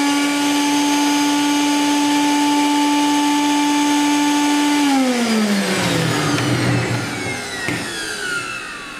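Prolux CTX water-filtration vacuum's two-speed motor running on its high, full vacuum speed with a steady whine. About five seconds in it is switched off and winds down, its pitch falling away.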